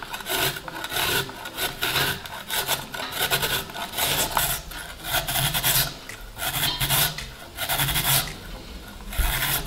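A carrot being grated on a flat handheld metal grater resting on a wooden cutting board: repeated scraping strokes, a little over one a second.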